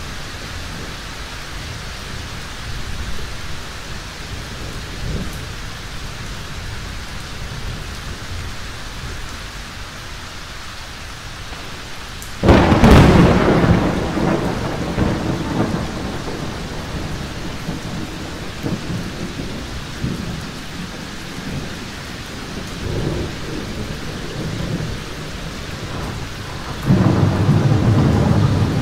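Heavy thunderstorm: steady rain with distant thunder rumbling. Just before halfway a sudden loud thunderclap breaks out and rolls on for a few seconds, and another loud peal of thunder comes near the end.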